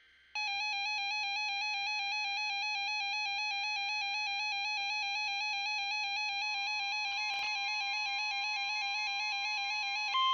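Electronic weather-alert tone warbling rapidly between two pitches, loud and steady, marking the start of a new alert. A faint steady tone joins it partway through, and right at the end it gives way to one steady alert tone.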